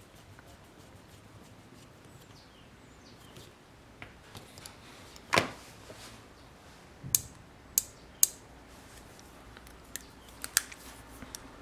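Sharp metallic clicks and taps from handling a Leatherman multitool as its belt clip is screwed back on: a loud click about five seconds in, three more in quick succession a couple of seconds later, and a few lighter ones near the end.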